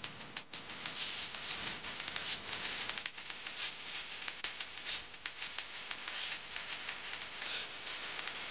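Irregular small clicks and rustling over a faint steady hiss, like close handling noise.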